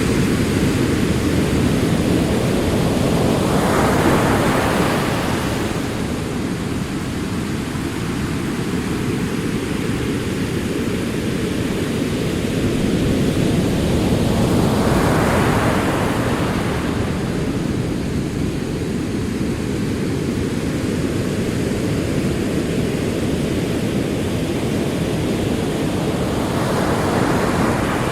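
Ocean waves rolling in, with a steady low rumble of surf under it. A wave surges and washes in three times, roughly every eleven seconds: about four seconds in, in the middle and near the end.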